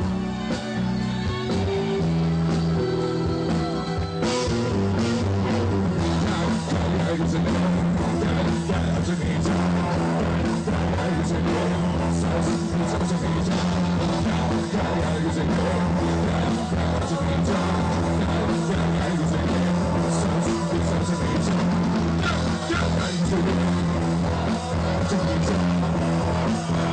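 Live rock-pop band music: a male singer over electric guitar and drum kit, with the full band, drums and cymbals, coming in about four seconds in.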